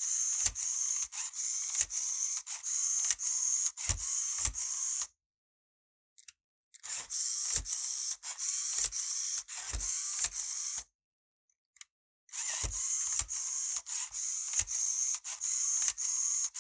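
LEGO EV3 motor driving a Technic gear train and levers: a steady whir broken by quick regular clicks, about two or three a second, with occasional low knocks. It runs in three stretches of a few seconds each, separated by silence.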